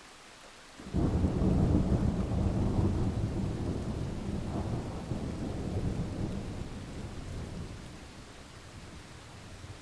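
A thunderclap breaks about a second in, a deep rumble that slowly dies away over the next several seconds, over the steady hiss of falling rain.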